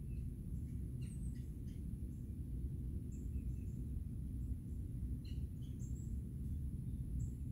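Outdoor ambience: a steady low rumble with scattered short, high bird chirps.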